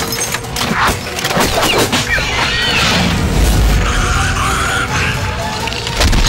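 Dramatic film soundtrack: music with booming hits and crashing impacts, several sharp hits in the first couple of seconds and a deep rumble a little past the middle.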